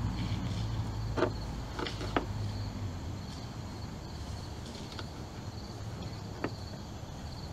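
A few scattered light clicks and taps as hands work the wiper motor linkage, trying to fit a new linkage bushing onto its stud. A steady high insect drone runs underneath, and a low hum fades out in the first few seconds.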